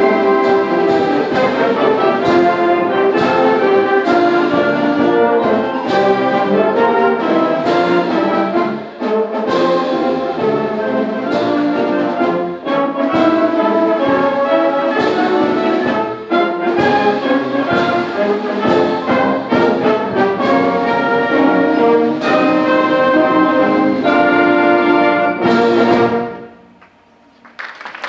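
Symphonic band playing the closing bars of a march, with the brass prominent, stopping on a final chord about two seconds before the end.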